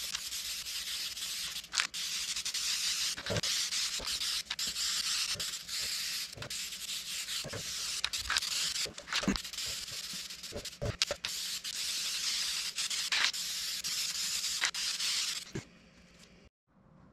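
Aerosol can of spray-on truck bed liner hissing as it is sprayed, in long bursts broken by short gaps and clicks. The spraying stops a couple of seconds before the end.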